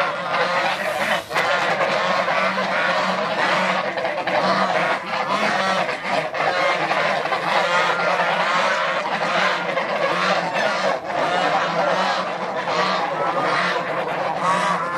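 A flock of domestic geese honking continuously, many calls overlapping into a loud clamour. The geese are calling at a puppy close to the flock.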